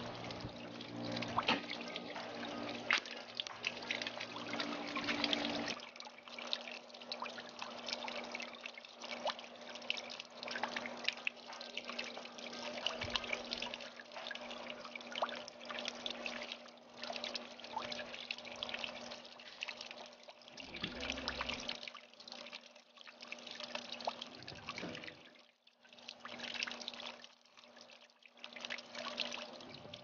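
Water from a small solar garden fountain trickling and splashing down stacked clam shells and rocks into a shallow pool, with a faint steady hum underneath.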